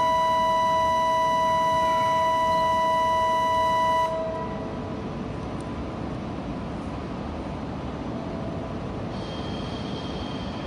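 A loud steady two-note electronic signal tone, held and cut off sharply about four seconds in, over a steady rumble that carries on after it.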